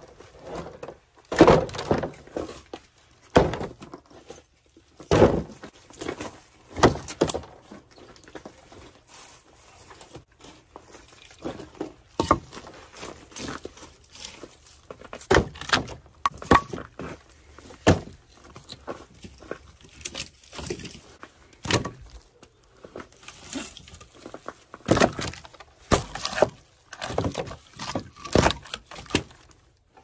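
Split firewood being handled and stacked, logs knocking and thudding against each other and the woodpile in irregular strokes. The heaviest thuds come a second or two apart at first, with lighter knocks and clatters scattered through the rest.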